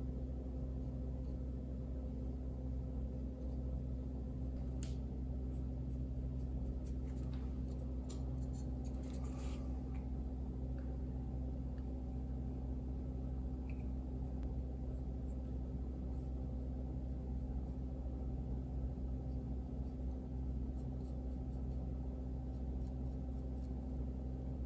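Faint scratching and light ticks of a fine paintbrush streaking oil paint across a small model part. The scratching comes mostly in the first half. Under it runs a steady low hum.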